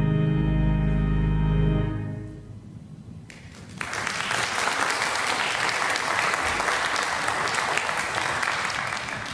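Final held chord of instrumental music fading away about two seconds in, then a congregation applauding.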